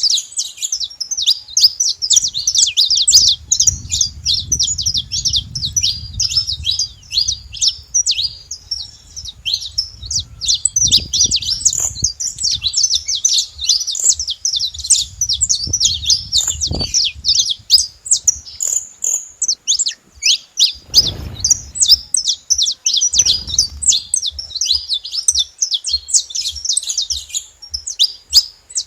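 Saffron finch singing: a fast, unbroken stream of high-pitched chirps and trills.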